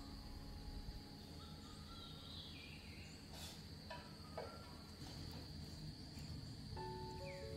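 Faint, steady high-pitched drone of insects, with a few soft clicks about halfway through. Light background music notes come back near the end.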